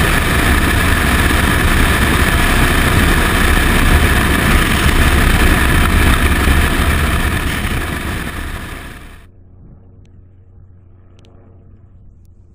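Loud rushing wind buffeting a helmet-mounted camera's microphone during a parachute jump, a dense steady roar heaviest in the lows. It fades and cuts off about nine seconds in, leaving only faint outdoor background.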